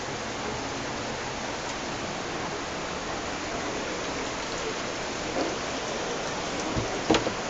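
Steady rushing noise of heavy rain and floodwater. A sharp knock comes near the end.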